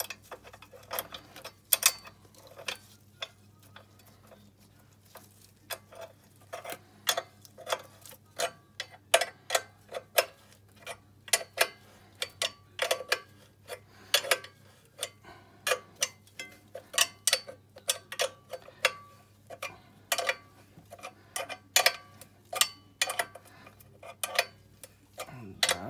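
13 mm combination wrench clinking against the chain-adjuster nuts and bolts on an ATV's rear axle housing: repeated sharp metal clicks, about two or three a second, as the wrench is turned in short strokes and refitted, tightening the bolts to tension the drive chain.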